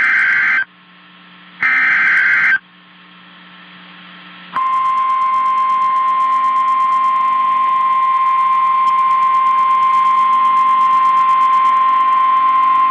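Emergency Alert System header data bursts: two short raspy buzzes, the digital coding that opens a new weather alert. After a brief pause comes the long, steady single-pitch weather radio warning alarm tone, over faint radio hiss.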